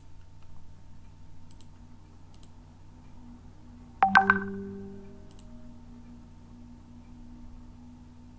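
A short chime sounds about four seconds in, several notes struck together that ring and fade over about a second. It plays over a low steady hum and a few faint clicks.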